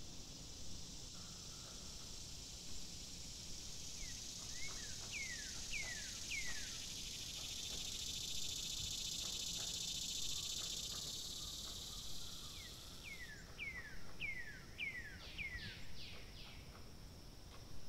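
Nature ambience: a steady high insect buzz that cuts off suddenly about two-thirds through, with a bird singing two runs of short, quickly falling whistled notes.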